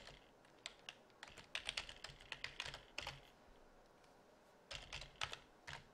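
Computer keyboard typing, faint: a quick run of keystrokes, a pause of about a second and a half, then a second run of keystrokes near the end.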